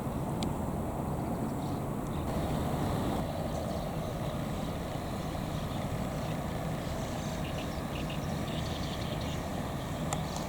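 Steady low vehicle rumble, with a few faint clicks near the end.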